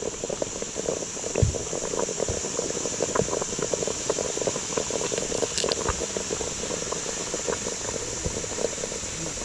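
Water bubbling and gurgling with many small pops, over a steady high hiss.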